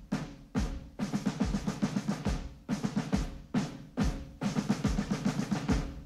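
Marching drum cadence: snare drum rolls and rimshots over bass drum beats, which land about once a second.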